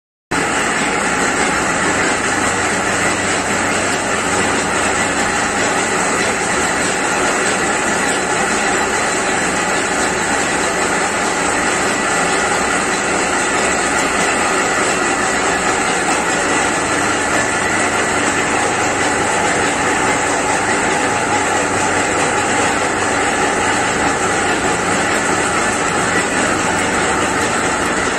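Belt-driven screw oil expeller crushing mustard seed, running with a steady, unbroken mechanical noise.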